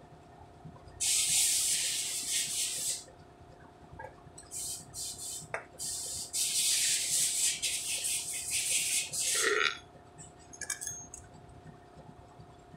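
Three bursts of hissing: one of about two seconds, a short one, then a longer one of about three seconds. A faint steady hum runs underneath.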